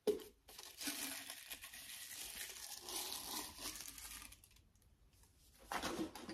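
Packaging crinkling and rustling as a reed diffuser and its reed sticks are unwrapped from a cardboard tube: a short knock at the start, a crackling spell of about four seconds, and a second shorter burst near the end.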